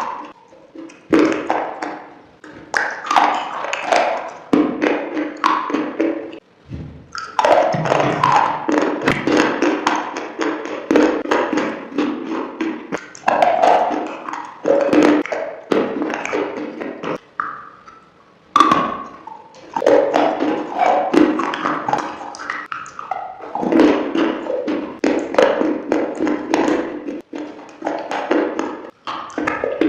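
Close-up chewing and crunching of crunchy food, a dense run of crackling bites with brief pauses about six and a half and eighteen seconds in.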